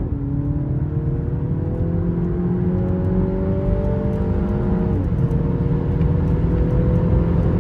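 Mini Cooper S's 2.0-litre turbocharged four-cylinder engine pulling hard in Sport mode, heard from inside the cabin. Its pitch climbs steadily and drops sharply at the start and again about five seconds in as the gearbox shifts up.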